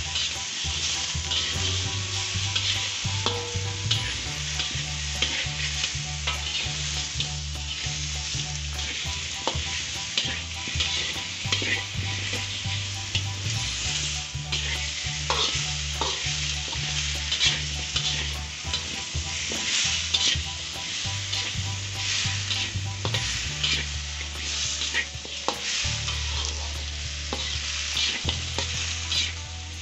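Chicken, potato cubes and onions sizzling in hot oil in a wok while a metal spatula stirs and scrapes them around the pan, with many short scrapes and clicks. A low hum that shifts in pitch every second or two runs underneath.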